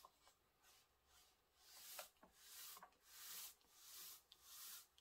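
Pencil scratching across brown pattern paper in about five faint, short strokes, roughly one a second, as a curved line is drawn.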